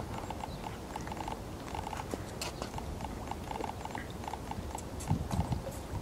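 Mute swan feeding at close range among broken ice, its bill dabbling and working in the water in a run of quick irregular clicks and slurps. A louder low rumble comes a little after five seconds.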